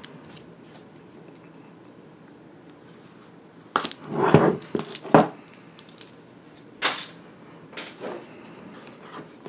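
A box cutter slitting the seal stickers on a cardboard phone box, then the box being handled, with short scrapes and sharp knocks; the first and loudest cluster comes about four seconds in, with single clicks after it.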